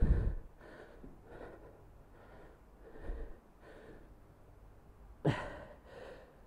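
A man breathing hard from the exertion of weighted reverse lunges: a string of short, forceful breaths in and out, the strongest a sharp exhale about five seconds in. Dull thuds of a foot landing come at the start and about three seconds in.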